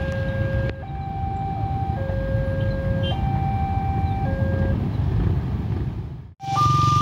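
Railway level-crossing warning alarm sounding, an electronic two-tone signal that alternates between a lower and a higher note about once a second, over the low rumble of idling motorbike traffic. Near the end it cuts out briefly and comes back as a louder, higher-pitched two-tone crossing alarm.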